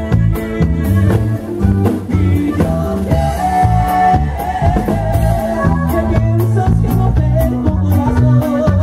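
Live band music: a regional Mexican conjunto playing with a steady beat on drums, a moving bass line and a held melody line on top.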